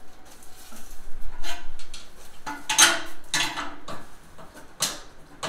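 Tongue-and-groove pliers working at a cut piece of a lawn tractor's steel frame: metal-on-metal clinks and scrapes, with a few sharp clanks, the loudest about three seconds in and just before five seconds.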